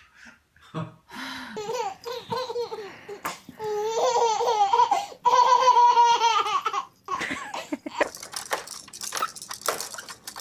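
Baby laughing in high-pitched bouts, loudest a few seconds in, then trailing off into quieter sounds near the end.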